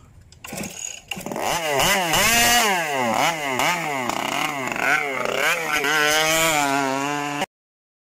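Small two-stroke petrol engine of an RC powerboat catching about a second in, then blipped repeatedly, its pitch rising and falling every half second or so. It settles into a steadier fast run, then the sound cuts off abruptly near the end.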